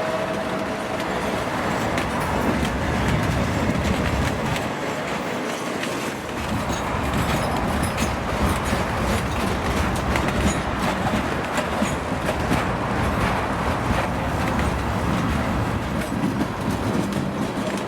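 Freight train rolling along the track: a steady run of wheel noise with many short clicks from the rails.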